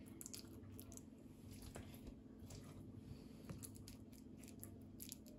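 Near silence: faint, scattered soft ticks and rustles of hands handling the thin samosa pastry and filling, over a low steady hum.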